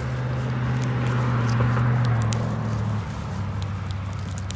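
A low engine hum that grows louder toward the middle and drops in pitch about three seconds in, with a few light clicks over it.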